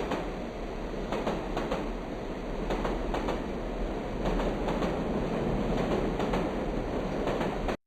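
Train running along the track: a steady rumble with irregular clicks from the wheels, cutting off abruptly near the end.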